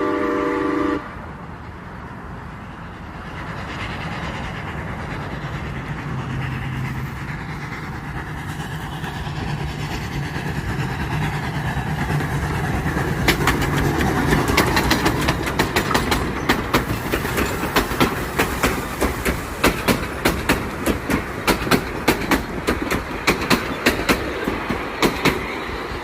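A train's steady multi-note warning blast cuts off about a second in, then the train draws closer with a building rumble and a low steady drone. From about halfway, its wheels click sharply and fast over the rail joints as the cars pass: clickety-clack.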